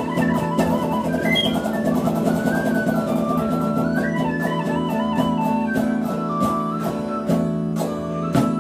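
Tin whistle playing a stepping melody over a strummed electric guitar, live.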